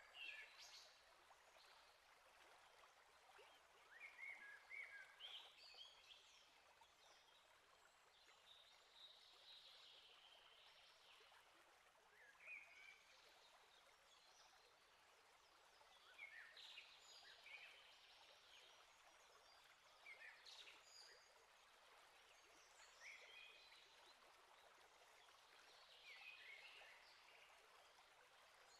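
Faint calls and short song phrases of small birds every few seconds, over a faint steady hiss.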